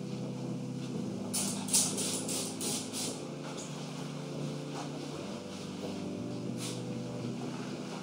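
Kitchen cleaning on a built-in microwave: a quick run of six or seven short hissing strokes about one to three seconds in, from spraying cleaner or wiping with a cloth, then a few fainter ones. Soft background music with held chords runs underneath.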